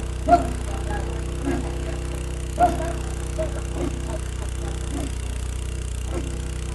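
Borehole drilling rig's engine running steadily, with a few short, sharp louder sounds over it, the loudest twice: once near the start and once about two and a half seconds in.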